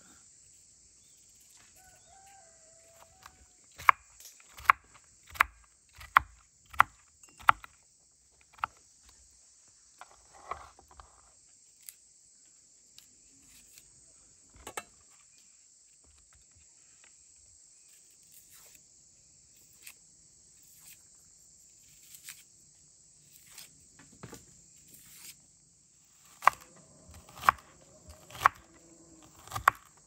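Steady high-pitched insect chorus, with sharp knocks in two runs: about six in quick succession a few seconds in, and four about a second apart near the end as a knife chops through an onion onto a wooden cutting board.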